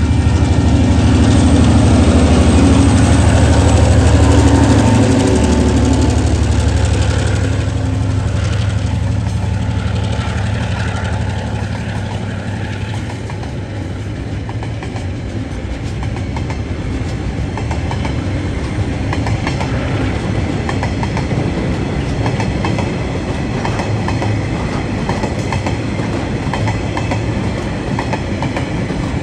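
A freight train's three diesel locomotives pass close by under power, their engines loudest over the first five or six seconds. The sound then eases into the rolling of container and flat wagons, with wheels clicking rhythmically over the rail joints.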